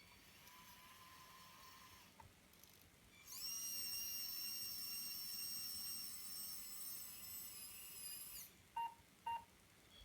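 Small electric motor of an RC model excavator running for about five seconds with a high-pitched whine, starting and stopping abruptly, followed by two short beeps.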